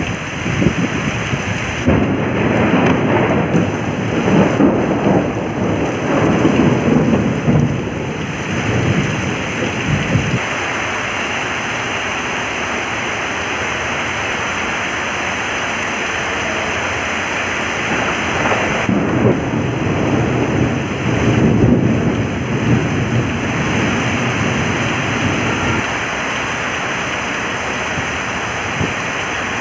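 Heavy rain falling steadily. Two long spells of low rumbling rise over it, one through the first ten seconds or so and another about two-thirds of the way through.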